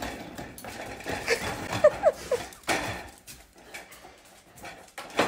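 Dog whimpering: a few short whines close together about two seconds in, with scuffling and a few sharp knocks.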